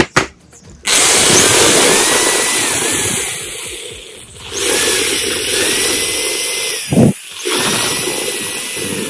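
Cordless drill running under load, spinning a bolt down into a hole in a wooden block. The motor's whine wavers, and it runs in three spells: it dips about four seconds in and stops again after a short loud knock about seven seconds in.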